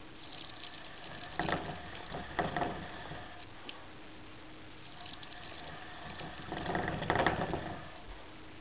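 Plastic hamster wheel rattling and rolling on its axle under a running hamster's feet, in two bouts with a short pause between; the second bout is the louder.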